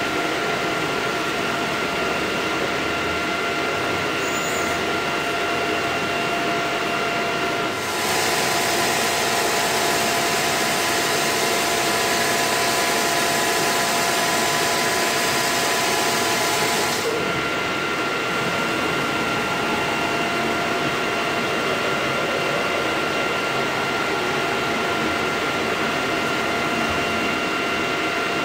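Hardinge GX 600 CNC vertical machining center running with a steady mechanical hum and whine. A louder hiss comes in about eight seconds in and stops about nine seconds later while the machine's table moves.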